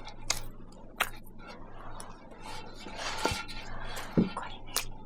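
Scattered light clicks and clinks, like dishes and cutlery being handled, irregularly about two or three a second, over a low steady hum.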